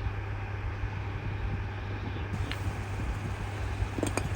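Steady low background hum, with a few faint light clicks from the brake pads being handled: one about halfway through and two close together near the end.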